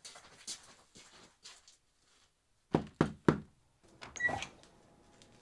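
Light footsteps, then three quick, loud knocks on a door about three seconds in, followed by the click and rattle of the door knob turning as the door is opened.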